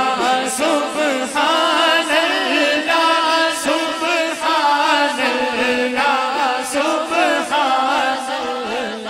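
A man singing a naat, a devotional poem in praise of the Prophet, unaccompanied by any instrument, in long, winding held phrases.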